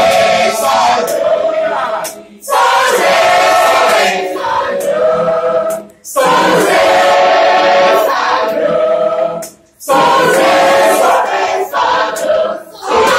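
Mixed choir of men and women singing a Batak hymn in parts, unaccompanied. The singing comes in phrases of about three to four seconds with short breaks for breath between them.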